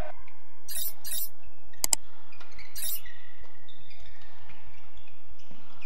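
Court shoes squeaking on the badminton court floor in short high-pitched pairs, twice, with a sharp tap about two seconds in.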